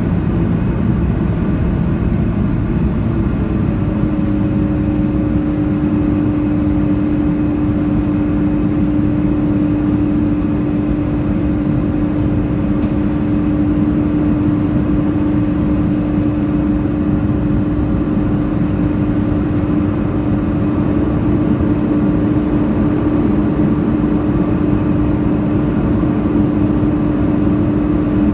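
Cabin noise of an Airbus A330-300 climbing after takeoff: a loud, steady rumble of jet engines and airflow heard inside the cabin. A steady hum settles in about four seconds in and holds.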